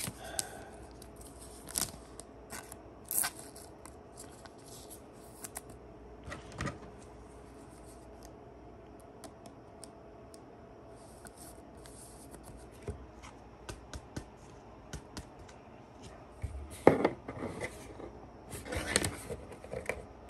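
A rigid clear plastic trading-card toploader being handled and a card slid into it: scattered light clicks and scrapes of plastic, with a louder run of scraping and rustling near the end.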